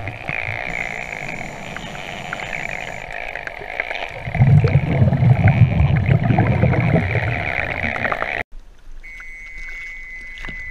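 Scuba diver's regulator breathing and exhaled bubbles gurgling underwater, with a loud burst of bubbling in the middle. About eight seconds in, the sound cuts off suddenly as the camera breaks the surface, leaving quieter water sounds.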